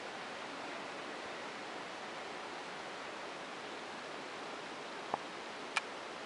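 Steady, even hiss of background room noise. Two short sharp clicks come near the end.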